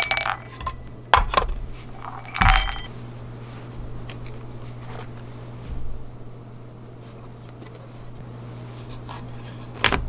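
Small parts dropped into a stainless steel parts tray, clinking with a short metallic ring, three times in the first three seconds. Later come softer knocks of boards being handled on the bench, and a sharp knock near the end, over a steady low hum.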